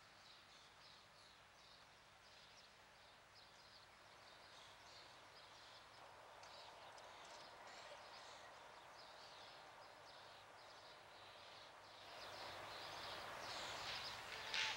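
Faint outdoor ambience: a short, high chirp repeating a few times a second over a soft hiss. A broader hiss swells and grows louder for the last few seconds.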